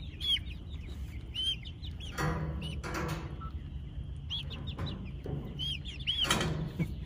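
Young chickens peeping with short, high, repeated calls, broken by a few louder, harsher chicken calls about two, three and six seconds in.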